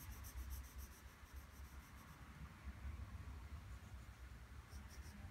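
Graphite pencil shading on drawing paper: faint, rapid back-and-forth hatching strokes that scratch for about the first two seconds, then a few more near the end.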